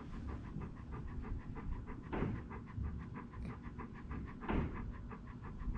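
Golden retriever panting close to the microphone, an even rhythm of about four breaths a second, with two louder swishes, one about two seconds in and one near the end.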